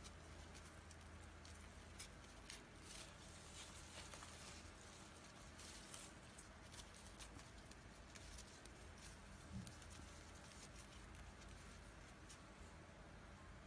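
Faint, scattered rustles and soft clicks of stiff raffia yarn being pulled through stitches with a crochet hook, over a quiet room hum.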